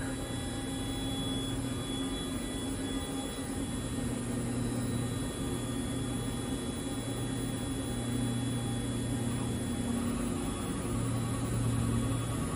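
Jerabek Alfa 800-AS CNC machining center running with a steady electric hum while its spindle head swivels on its rotary axes; a few faint whining tones join in about ten seconds in.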